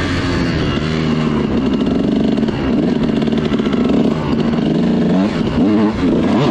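Kawasaki KX dirt bike engine revving up and down as it is ridden along a trail, its pitch rising and falling with the throttle, with several quick throttle blips near the end. The engine is being run in on a newly fitted piston.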